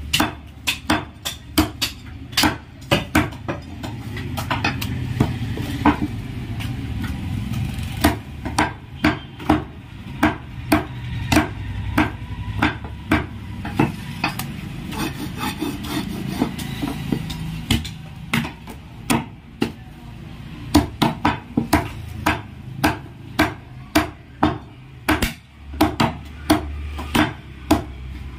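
Broad butcher's cleaver chopping mutton on a thick wooden chopping block: quick hard chops, about two a second, coming in runs with short breaks while the meat is shifted.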